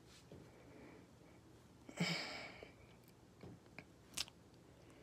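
A person's heavy breath out, like a sigh, about two seconds in, followed by a few faint sharp clicks or taps near the end.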